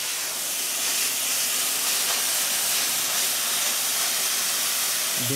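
Commercial steam cleaner (Kärcher SG 4/4) jetting steam from its lance nozzle onto the leather head of a taiko drum: a steady hiss, set to steam with only a little hot water, used to shrink the drum's stretched skin.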